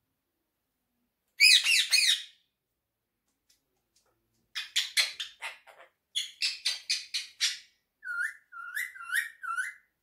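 Indian ringneck parakeet calling: a loud burst of calls about a second and a half in, then a quick string of short calls, and four short rising chirps near the end.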